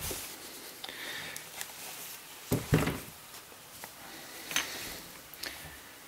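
Handling noise from a metal-bodied Biax electric hand scraper: light clicks and knocks as it is turned in the hands and laid down on a paper-covered bench, with one louder thump a little under 3 s in.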